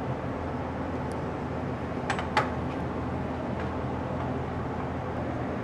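Steady low hum in a workshop, with two sharp knocks a quarter of a second apart about two seconds in.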